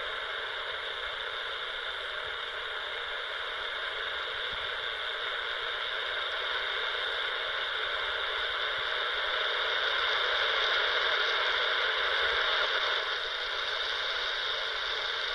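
Shortwave static hissing steadily from the small speaker of a CountyComm GP-5 SSB portable receiver tuned to 11600 kHz before the station's programme begins. The hiss is thin and tinny, and swells slightly for a few seconds about two-thirds of the way through.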